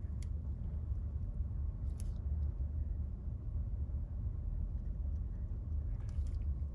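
A steady low hum, with a few faint clicks: one right at the start, one about two seconds in and one near the end.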